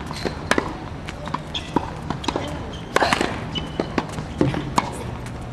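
Tennis ball struck by racket and bouncing on a hard court during a rally: sharp pops, loudest about half a second in and about three seconds in, with lighter ball bounces between.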